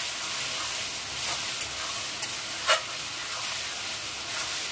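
Chicken and vegetables sizzling steadily in a steel kadai while a metal spatula stirs them, scraping and knocking against the pan a few times, the sharpest knock about two and a half seconds in.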